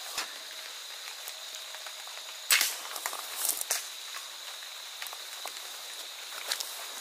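Mechanical slingshot rifle firing: one sharp snap as the rubber bands are released about two and a half seconds in, followed by a few short crackles, over a steady high hiss.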